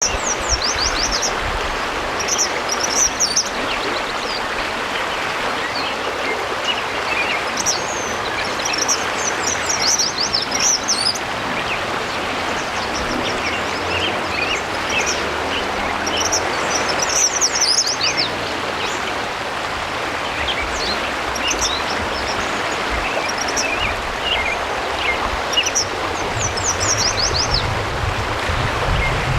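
Eastern kingbird calling: short clusters of rapid, high, sharp stuttering notes, repeated every few seconds. A steady rushing hiss runs underneath.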